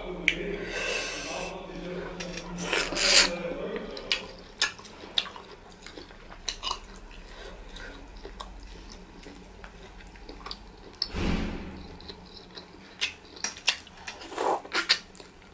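Eating by hand from a ceramic bowl: fingers tearing and pressing soft pounded yam fufu and meat in light soup, with wet squishing and small clicks against the bowl, then biting and chewing near the end.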